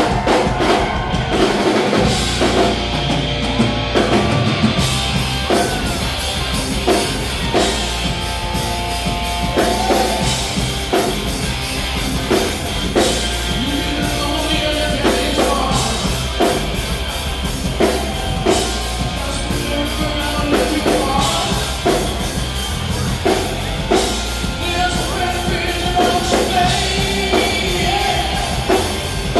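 Live rock band playing, with electric guitar over drums and bass.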